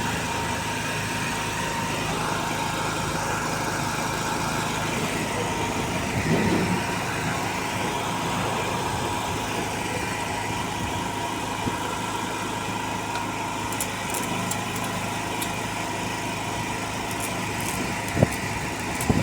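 Petrol engine of a welder-generator running steadily at an even speed, just after being got going. A single sharp knock near the end.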